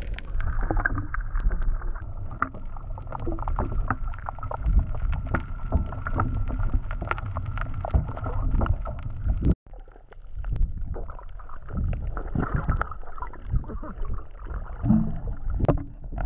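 Underwater water noise on a submerged action camera: a continuous muffled low rumble of water moving against the housing, with many small clicks and knocks. It cuts out for an instant about halfway through.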